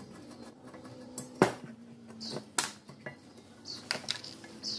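Irregular metal clicks, taps and short scrapes of a steel screwdriver working against a rusty steel bench vise body, with one sharp knock about a second and a half in.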